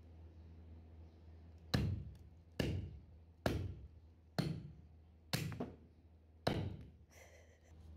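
Heavy cleaver (toka) chopping through a cow's trotter on a wooden stump block: six sharp chops about a second apart, beginning a little under two seconds in.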